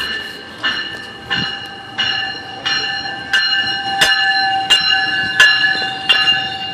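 GO Transit commuter train's warning bell ringing steadily as the train pulls into the station, about one and a half strikes a second, each strike ringing on.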